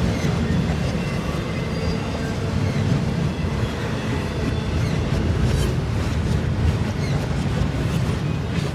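Double-stack intermodal freight cars rolling past, a steady low rumble with faint wheel clicks and brief thin squeals, the recording played backwards.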